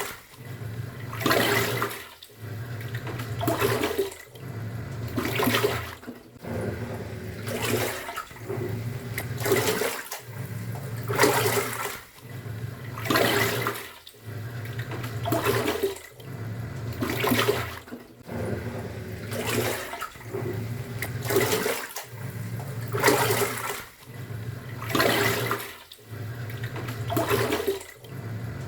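Top-loading pulsator washing machine agitating: the motor runs for under two seconds, stops, and starts again in the other direction about every two seconds, with water sloshing and churning in the tub on each stroke.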